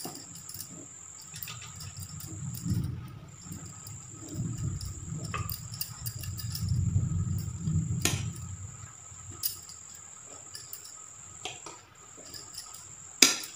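Steel spoon scooping batter and clinking against a steel bowl and idli-plate moulds, a few separate sharp clicks with the loudest near the end, over a low rumble that swells through the middle. A cricket chirrs steadily in the background, stopping briefly twice.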